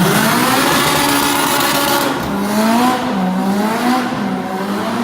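Honda Civic Si four-cylinder engine running loud through a straight-piped exhaust with a section come loose from its factory weld, its pitch rising and falling several times as it is revved.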